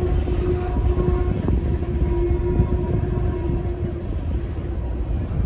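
Loaded CSX stone hopper cars rolling past with a steady low rumble of wheels on rail. A steady ringing tone sits over the rumble and fades out about four seconds in.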